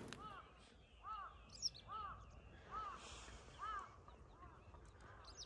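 A bird calling over and over, six short calls a little under a second apart, faint. A smaller bird chirps briefly twice.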